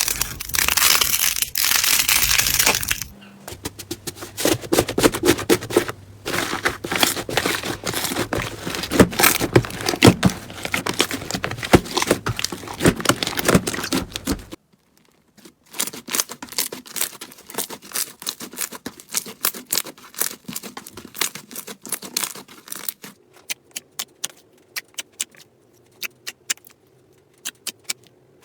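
Slime, much of it crunchy slime, being handled, making dense crackling and crinkling that turns into many sharp clicks and pops. About halfway through the sound cuts out briefly, then sparser pops and clicks follow.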